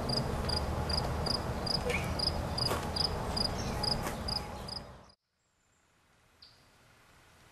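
Cricket chirping in an even rhythm, about two and a half high chirps a second, over a steady outdoor rumble. The sound cuts off abruptly about five seconds in, leaving a faint hush with one short high chirp.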